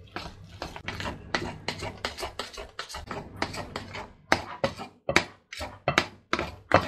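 Metal spoon stirring thick cake batter with grated carrot and dates in a bowl: a quick run of scraping strokes, two to three a second, becoming sparser and sharper in the last few seconds.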